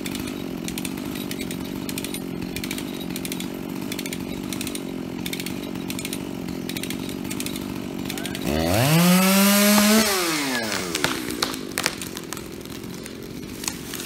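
Dolmar 7900 two-stroke chainsaw running steadily in the felling cut. About eight and a half seconds in it revs up sharply, holds high for a second or so, then winds down as the throttle is released. A few sharp cracks follow near the end as the spruce begins to go over.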